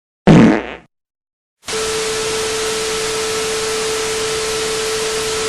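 A short, heavy thump about a quarter second in, then, after a second of silence, a steady burst of static hiss with a steady pitched tone running through it.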